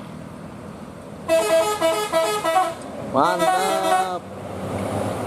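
Tour bus's Basuri telolet horn playing a quick melody of short stepped notes about a second in, then a second phrase that slides up into longer held notes.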